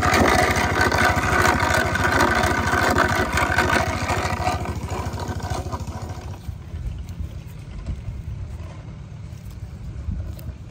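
An engine running steadily at idle, a regular low chugging of even firing pulses. For the first six seconds or so a higher, busier whirring sits over it, then fades out.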